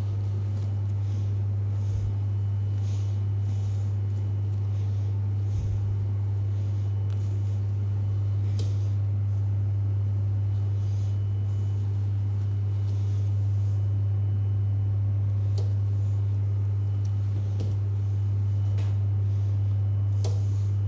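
A steady low hum, with faint scattered clicks and rustles.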